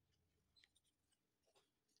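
Near silence: room tone with a couple of faint, short clicks.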